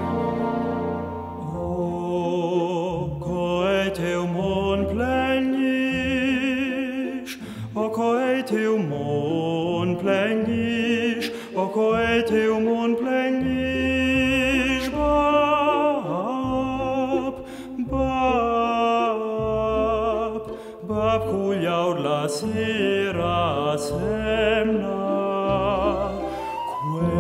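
Slow orchestral ballad: sustained strings and chords under a vibrato melody line sung in an operatic style.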